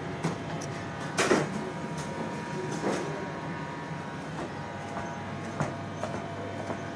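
Steady hum of takeaway-kitchen equipment, with a few knocks and clatters of food being prepared, the loudest about a second in.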